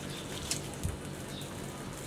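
Knife cutting and scraping meat from a singed lamb's head on a wooden cutting board: a sharp click about half a second in and a dull knock just under a second in. Faint high chirps recur over a steady low hum.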